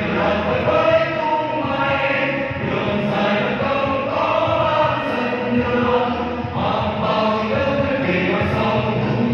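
A choir singing a song together through microphones, the voices holding long notes.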